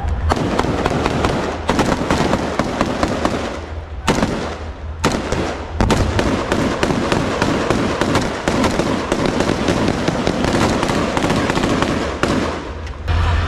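Sustained rapid gunfire from rifles: a dense crackle of many shots, with a short break about four seconds in.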